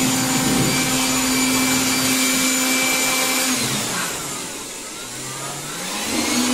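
Corded handheld power tool running with a steady whirring motor. A little over halfway through, its pitch and loudness drop as the motor slows, then rise back to full speed near the end.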